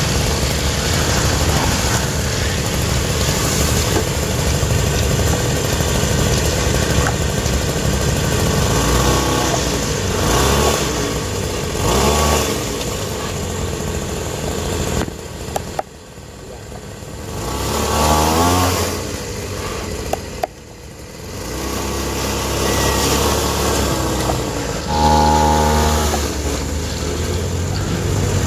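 Motor noise of a homemade radio-controlled Caterpillar 797 dump truck model, rising and falling in pitch several times as it speeds up and slows down, with two brief drops in level around the middle.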